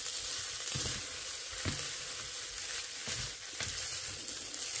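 Basmati rice, minced meat and mushrooms sizzling steadily as they fry in a stone-coated pot, toasted before the broth goes in so the rice stays separate. A spatula stirs them, scraping and knocking softly against the pot a few times.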